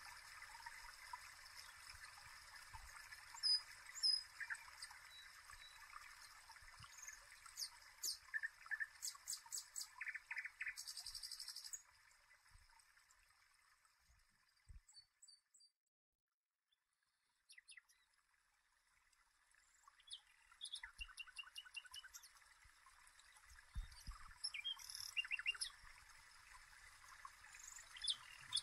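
Birds chirping and singing, with short trills and calls over a faint steady hiss. It breaks off to near silence for a few seconds midway, then resumes.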